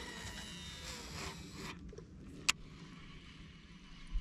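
Baitcasting reel spool spinning through a cast: a hissing whir with a thin whine as line pays out, lasting just under two seconds. A single sharp click follows about two and a half seconds in.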